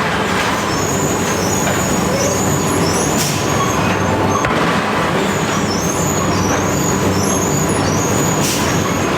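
Heavy machinery running steadily and loudly with a low hum, short high squeaks, and a couple of brief hissing or clanking bursts, about three seconds in and near the end.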